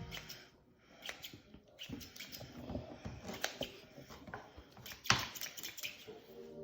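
Salad choppers chopping fresh cilantro in a bowl: irregular quick snips and clicks of the blades, with one sharper click about five seconds in.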